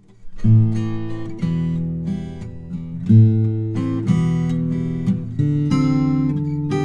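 Solo guitar playing the song's intro: chords struck about every one to two seconds, each left to ring.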